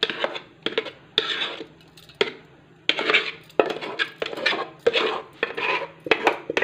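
Stainless-steel pan and plate clattering, with repeated scrapes and sharp clinks about one or two a second, as cooked moong dal dough is worked loose and turned out of the pan.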